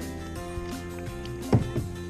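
Music with sustained, held tones, with a single dull low thump about one and a half seconds in.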